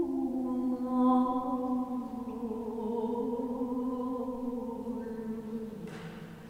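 A woman singing solo and unaccompanied in long, slowly gliding notes that sink gradually in pitch, in the style of Japanese kiyomoto vocal music. A short breathy noise comes near the end as the note fades.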